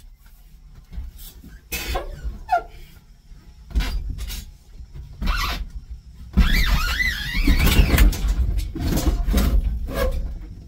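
A freezer being shoved into the back of a cargo van: a series of knocks and bangs against the van's bare metal body and floor. About six seconds in there is a harsh scraping stretch with a wavering squeal as it is pushed along.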